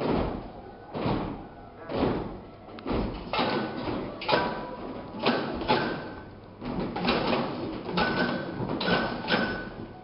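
Rhythmic percussion from a children's music group: heavy thumps about once a second, with a few extra beats squeezed between them.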